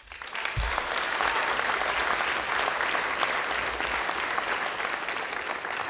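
Audience applauding: many people clapping at once, starting suddenly, holding steady, and thinning out near the end.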